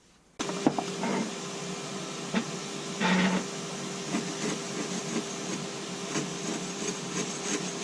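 A workshop power tool running steadily, a hum with a hissing rasp over it. It starts abruptly about half a second in, with a few louder scrapes along the way.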